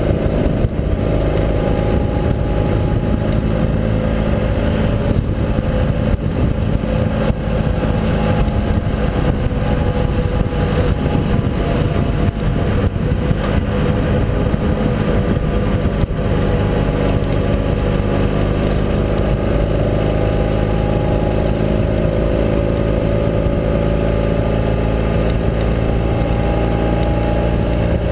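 Ural Gear Up sidecar motorcycle's air-cooled flat-twin engine running steadily at cruising speed, with wind and road noise at highway speed.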